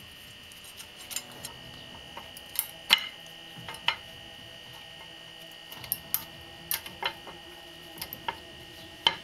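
Irregular light metallic clicks and clinks, a dozen or so with the loudest about three seconds in, of a new rear brake pad and its metal retaining clips being worked into the caliper bracket by gloved hands.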